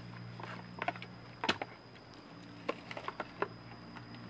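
Knife cutting and prying apart the thick spiky husk of a Monthong durian: scattered sharp clicks and cracks, the loudest about a second and a half in, over a steady low hum.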